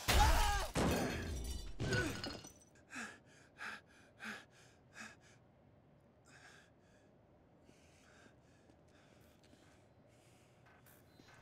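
A sudden loud crash with a man's falling cry, a second hit about two seconds in, then a run of short gasping breaths, about one every two-thirds of a second, fading out.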